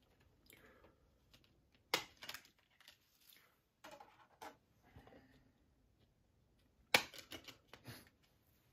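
Handling of disc packaging: scattered clicks and knocks of cases being moved and set down, with short rustling and scraping between. The sharpest clicks come about two seconds in and again about seven seconds in.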